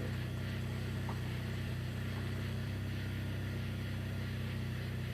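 Steady low hum with an even, unchanging pitch.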